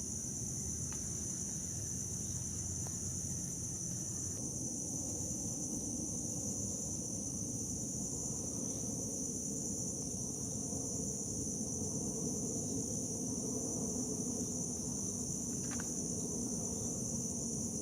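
Insect chorus, a continuous high-pitched drone, over a low rumbling background noise.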